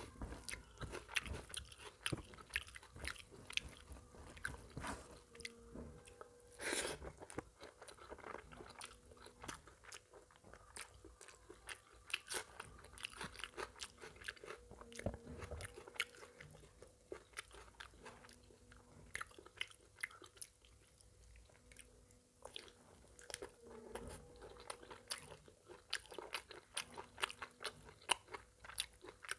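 Close-miked eating sounds: chewing, wet smacking and small crunches as a person eats mutton curry and rice by hand, an irregular run of short clicks with one louder crunch about seven seconds in.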